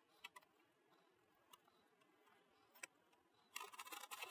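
Near silence: faint room tone with a few isolated ticks, and a short run of faint clicking near the end.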